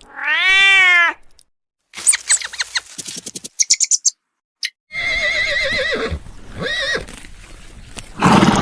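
A string of animal calls: an arching call right at the start, a quick run of short calls with high chirps a couple of seconds in, then a quavering horse whinny about five seconds in and a shorter one after it. A short, loud noisy burst comes near the end.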